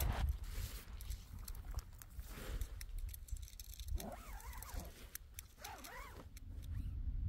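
Wind rumbling on the microphone with scattered light clicks. Two short, arching animal calls come about four and six seconds in.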